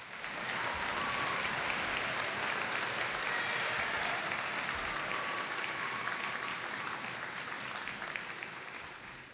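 Audience applauding, starting at once and fading out near the end.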